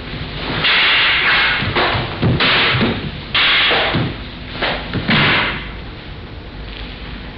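Sparring with a wooden training naginata on a wooden floor: a run of about six loud, short rushing and scuffing noises with thuds over some five seconds, as the staff is swung and one man is swept off his feet and falls to the floor.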